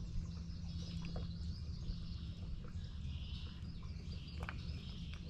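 Birds chirping faintly over a steady low rumble, with a few small clicks.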